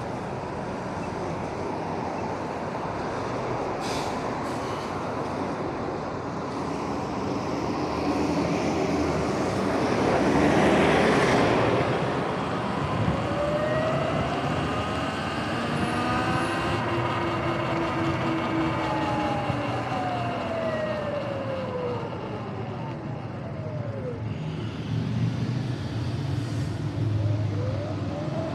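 Sur-Ron electric dirt bike's motor whining, rising in pitch as it pulls away and falling again as it slows, then starting to rise again near the end, over steady road and wind noise. A louder rush of noise comes about ten seconds in.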